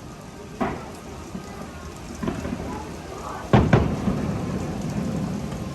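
Steady rain with claps of thunder: a sharp crack about half a second in, a weaker one near two seconds, and the loudest about three and a half seconds in, rolling on into a low rumble.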